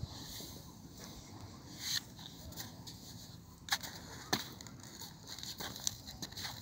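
Metal spade digging into wet sand: about four sharp scrapes and knocks as the blade bites in and clods of sand land, two of them close together a little under four seconds in.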